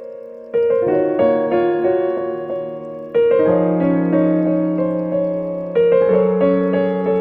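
Slow piano music: a chord is struck roughly every two and a half seconds and fades away, with single notes played between the chords.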